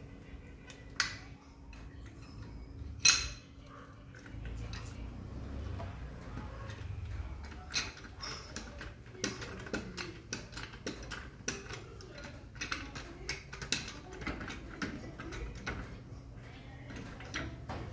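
Metal tools and lug nuts clinking while a wheel is test-fitted on a car hub: two sharp metallic clanks about one and three seconds in, then a long run of irregular short clicks and knocks.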